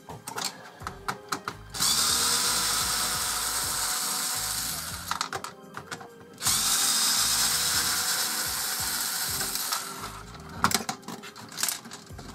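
Cordless drill-driver backing screws out of a soundbar's chassis, running in two steady spells of about three seconds each. Clicks and knocks of the parts being handled come before, between and after the spells.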